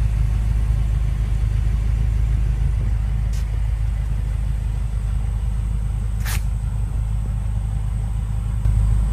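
Steady low rumble, like a motor running nearby, with two short clicks about a third and two thirds of the way through.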